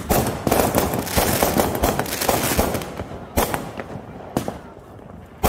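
Consumer aerial fireworks going off: a sharp bang, then about three seconds of dense crackling, then a few more separate bangs.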